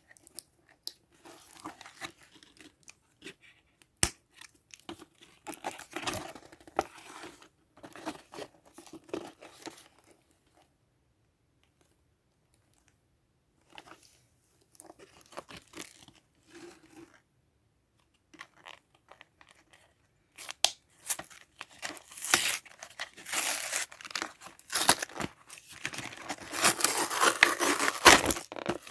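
Toy packaging being opened by hand: bursts of tearing and crinkling with a few sharp clicks. There is a pause of a few seconds near the middle, then denser, louder tearing and crinkling toward the end.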